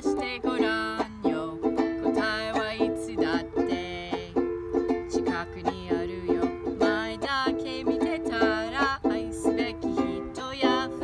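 Banjolele strummed in a steady rhythm of repeated chords, with a voice singing the song's melody over it.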